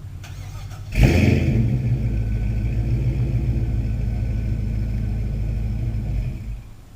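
LS1 V8 with an aftermarket exhaust starting up about a second in with a loud burst, then running at a steady rumbling idle until it cuts off near the end.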